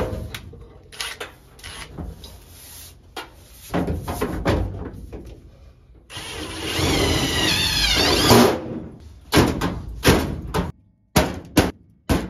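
A power drill driving a screw into sheet metal for about two seconds, its motor pitch wavering as the screw bites. Scattered knocks and clunks come before it, and a run of sharp knocks follows near the end.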